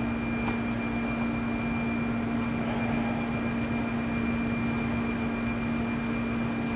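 Steady hum of a Spinner VC450 CNC vertical machining center running an automatic probing macro, with one low tone and one thin high tone held throughout. A faint click about half a second in.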